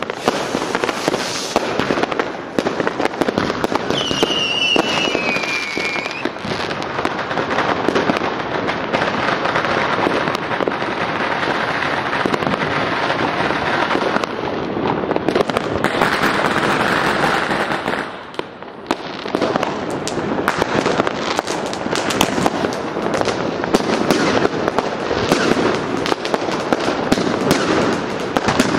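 Many fireworks and firecrackers going off together in a continuous barrage of crackling and bangs, with a high whistle gliding down in pitch about four seconds in. The barrage eases briefly about two-thirds of the way through, then builds again.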